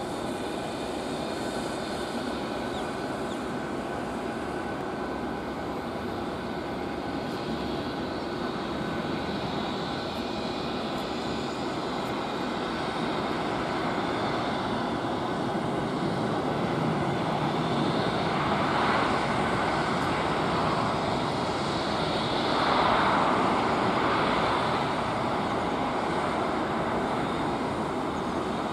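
Airbus A320 jet engines running as the airliner lands and rolls out on a rain-soaked runway, a steady rushing noise that swells twice about two-thirds of the way through.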